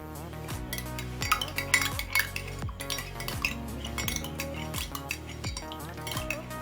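A spoon stirring lime juice and sweet soy sauce in a glass, clinking against the glass in quick, irregular taps as the mixture is stirred evenly. Background music with a repeating beat plays underneath.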